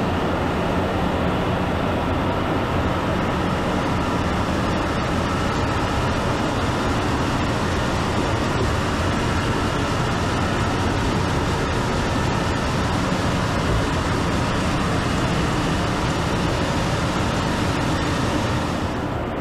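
Processing machinery running steadily: hopper-fed drum and shaking sieve trays sorting granular leaf material, an even, dense mechanical noise with a low hum underneath.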